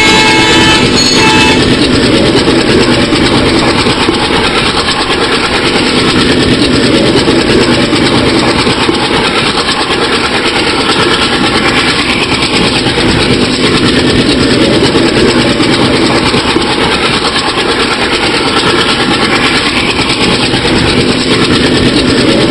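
A locomotive horn's chord cuts off about a second in, followed by the loud, steady engine and rail noise of an ALCo diesel locomotive-hauled train.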